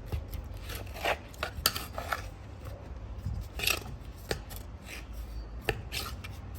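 Mango pieces being stirred with spices in a clay pot: irregular scrapes and light knocks.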